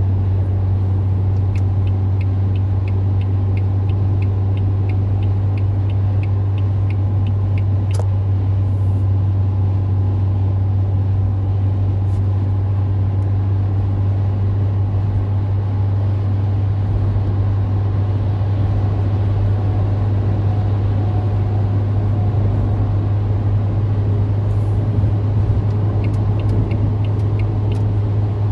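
Steady low drone of a car's cabin at motorway speed, engine and tyre noise heard from inside the moving car. A light, rapid ticking comes in for a few seconds near the start and again near the end.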